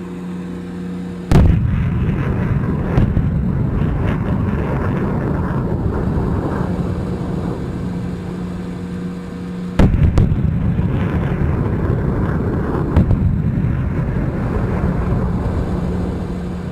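HIMARS rocket launcher firing twice, about eight and a half seconds apart: each launch is a sudden loud blast followed by several seconds of rocket-motor noise with a few sharp cracks, slowly fading. Before, between and after the launches the launcher truck's engine idles with a steady hum.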